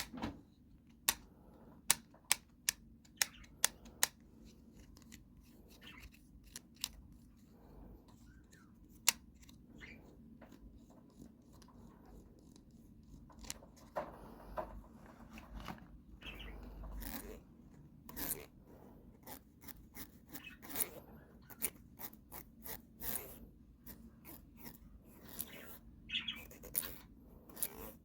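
Fingernails tapping on makeup packaging in sharp, irregular clicks. A few loud taps fall in the first four seconds. From about halfway the tapping becomes denser and softer, with light handling noise between the taps.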